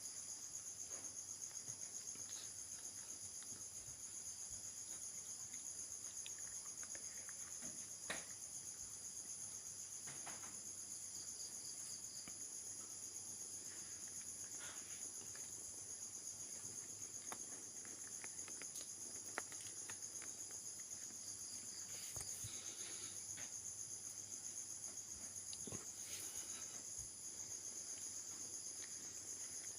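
Insect chorus: a steady, high-pitched trilling that goes on without a break, with a few faint clicks scattered through it.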